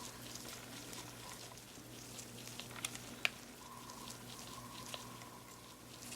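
Faint scratching and small ticks of a size 4/0 precision Phillips screwdriver turning out tiny screws from a compact camera's lens unit, with two sharper ticks about halfway through, over a steady low hum.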